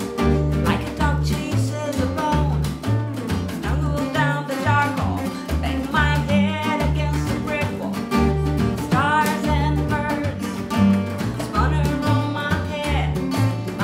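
A small acoustic band playing a song live: a woman singing over a strummed acoustic guitar, with a second guitar, upright bass and drums.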